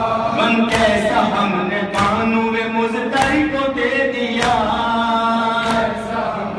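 A group of men chanting a noha lament in unison while beating their chests (matam) in time. The hand strikes on the chest come together on a steady beat, about one every second and a quarter, five times.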